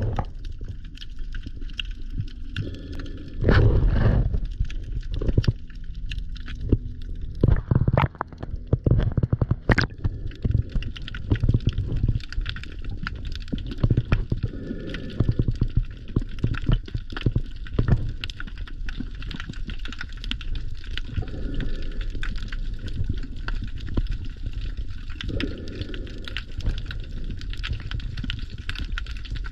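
Underwater sound from a camera filming below the surface: a low, muffled rumble of moving water with scattered clicks and crackles. A few louder rushing surges stand out, the loudest about four seconds in.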